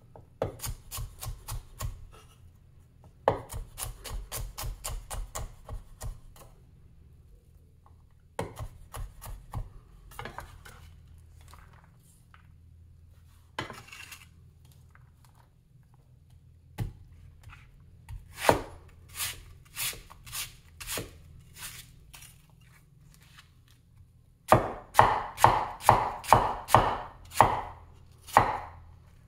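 Large vintage Chinese cleaver chopping red onions on an end-grain wooden cutting board: runs of quick knocks of the blade on the wood, with quieter stretches between them. Near the end comes a loud, steady run of chops, about two or three a second.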